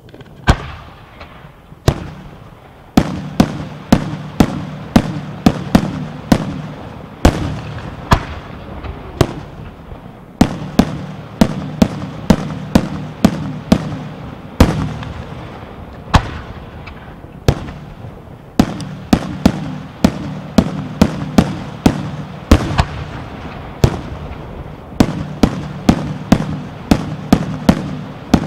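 Aerial firework shells bursting in a rapid series of loud bangs, at times about two a second, each bang trailing off in echo, with a few brief lulls between salvos.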